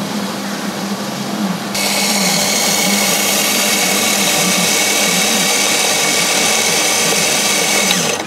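Espresso machine steam wand steaming milk in a stainless steel pitcher: a steady, loud high hiss that switches on sharply about two seconds in and cuts off just before the end.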